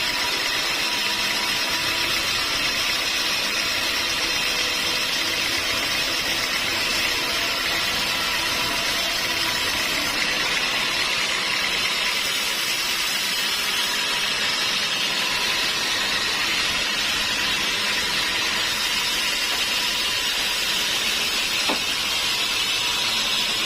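Sawmill machinery running steadily: a constant, even mechanical noise with a faint steady hum underneath.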